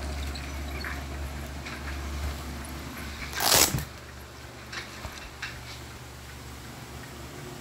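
A man sitting down in a desk chair: one short, loud rustle about three and a half seconds in, over a low steady room hum, followed by a couple of faint clicks.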